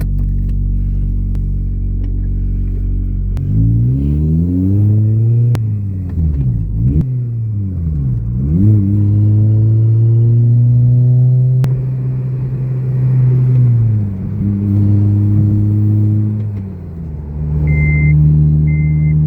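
Eighth-generation Honda Civic Si's 2.0-litre four-cylinder engine idling, then pulling away with revs climbing and dropping at each of about three upshifts before settling to a steady cruise and easing off. Two short high beeps near the end.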